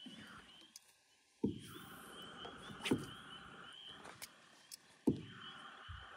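A faint, steady chorus of frogs calling, with three sharp knocks from a walleye and landing net being handled in a boat: about a second and a half in, near three seconds, and about five seconds in.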